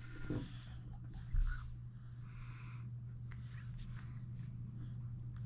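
Faint scratchy, rustling sounds of a small child handling and chewing a piece of 100% cacao chocolate, over a steady low electrical hum, with a soft bump about a second in.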